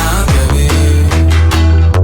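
Background music with a heavy bass line and electronic drums, including falling-pitch drum hits.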